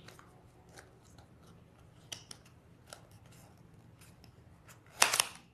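Packaging of a speed cube being opened by hand: scattered small clicks and snips of plastic and cardboard, with a louder crackling burst near the end.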